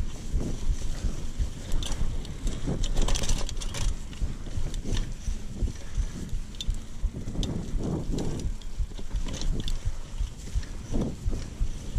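Mountain bike riding over a dirt trail: a steady low rumble of tyres rolling, with scattered clicks and rattles from the bike.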